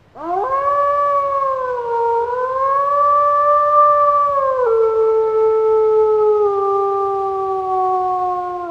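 Female werewolf howl sound effect: one long howl that rises in pitch at the start and is held, dips slightly about two seconds in, drops a step in pitch near the middle, then slowly falls until it stops.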